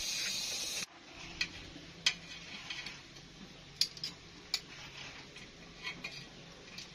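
Water at a rolling boil in an aluminium steamer pot, hissing steadily, cut off suddenly less than a second in. After that, a few faint, sharp clicks scattered over a low background hum.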